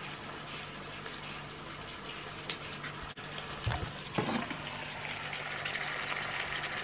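Marinated chicken pieces sizzling in melted butter in a frying pan: a steady crackling hiss that grows louder about five seconds in. Two short louder sounds come just before and just after four seconds in.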